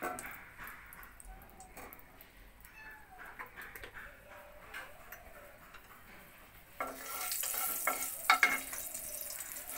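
Hot mustard oil in a non-stick kadai on a gas burner, with light clinks of the pan and a bowl at first. About seven seconds in, a loud frying sizzle starts as a wooden spatula goes through the oil, with a few sharp crackles.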